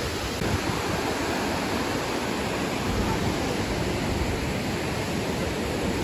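Steady rush of water pouring over the dam's overflow, an even, unbroken noise.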